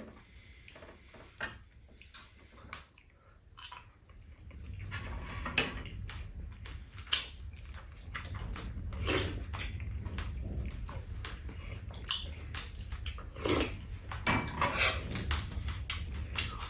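Eating at a shared meal: metal spoons and chopsticks clicking and scraping against ceramic bowls and a frying pan, with chewing. The clicks are sparse at first and come thicker from about four seconds in.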